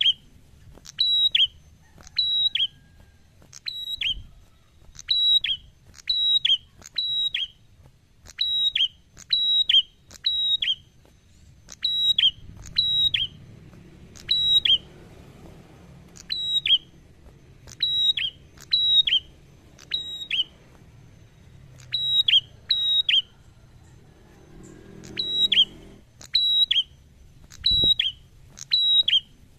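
Ashy tailorbird singing: loud, sharp, high notes that drop quickly in pitch. They come in quick twos and threes, about one to two notes a second, all the way through.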